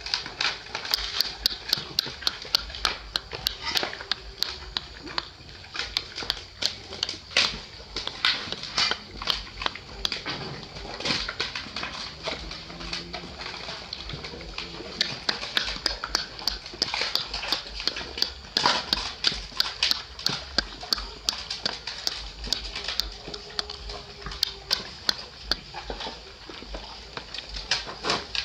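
A group of puppies and adult dogs eating together from bowls, making a dense, irregular run of wet lapping, chewing and smacking clicks, several a second.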